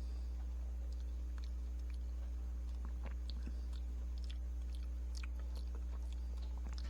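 Faint chewing and small bites on a hard, frozen ice cream bar with a crumb coating, heard as scattered soft clicks over a steady low hum.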